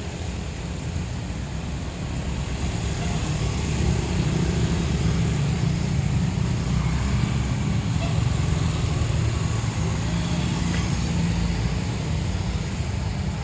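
Tour bus diesel engine rumbling low as the bus pulls out. It grows louder over the first few seconds, then eases slightly near the end.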